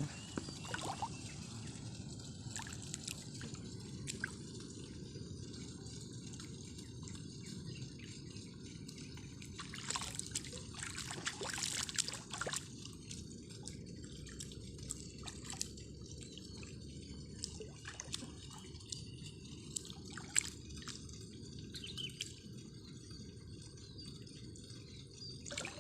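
Water dripping and trickling with small splashes over a steady low background noise, the splashes busiest about ten to thirteen seconds in.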